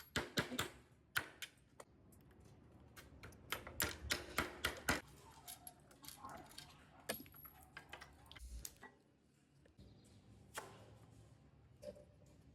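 Faint, scattered clicks and light taps, with a cluster of them around four seconds in.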